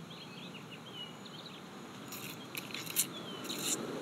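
A handheld trigger spray bottle squirting several times in short hissing bursts, starting about halfway through, the loudest near three seconds in. Birds chirp in the background.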